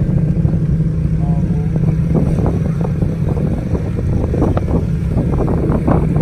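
Steady loud rumble and low hum of a moving ski chairlift, with many short rattles scattered through it.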